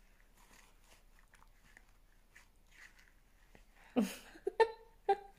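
A child working a loose baby tooth with a tissue held in her mouth: faint mouth and tissue rustles, then about four seconds in a sharp breath followed by two short vocal noises of effort.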